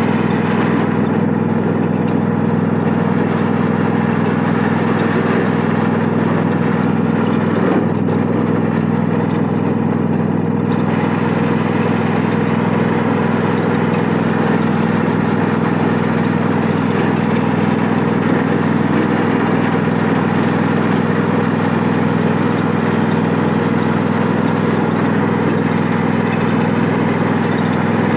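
Lawn mower engine running at a steady speed while the mower is driven.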